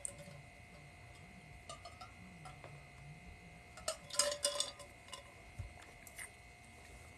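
Clicks and clinks from a drink tumbler being handled and drunk from, with a cluster of them about four seconds in. A faint steady tone runs underneath.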